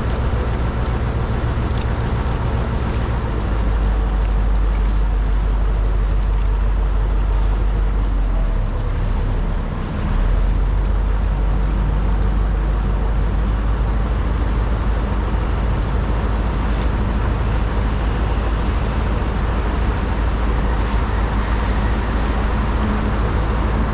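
Boat engine running steadily under way, a low drone with a noisy wash over it; the drone dips briefly about ten seconds in, then picks up again.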